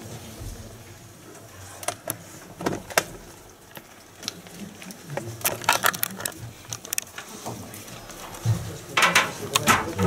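Scattered light clicks and knocks with paper handling as ballot papers are cast into a clear plastic ballot box and the box is moved along a table, with faint murmuring voices in the room.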